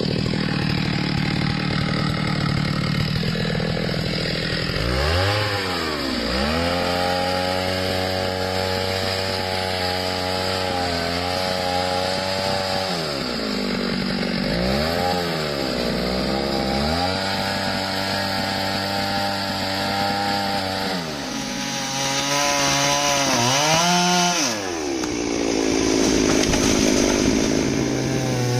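Stihl two-stroke chainsaw running hard through a tree, its engine pitch dipping and swinging back up several times as the chain is loaded in the cut and eases off.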